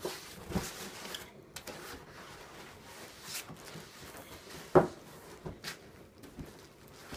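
Cardboard laptop boxes and foam packing being handled: scraping and rustling of cardboard with scattered light knocks, and one sharp knock about two-thirds of the way through as a box meets the table.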